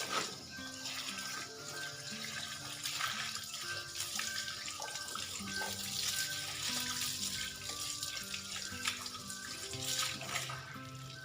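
Water splashing and running as clothes are washed by hand, the seventh and last wash, over background music of slow held notes.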